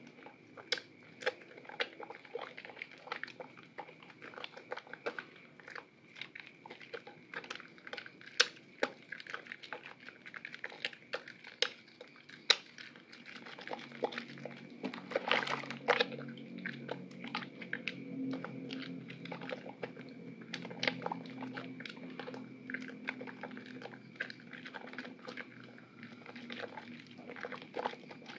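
Soaked, softened white soap bar squeezed and kneaded by wet hands in a basin of soapy water: wet squishing with many small, irregular crackling pops. A low steady hum comes in about halfway.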